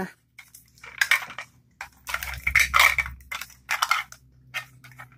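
Thin plastic wrapping crinkling and rustling in irregular bursts as a small plastic Mini Brands toy capsule is handled and unwrapped.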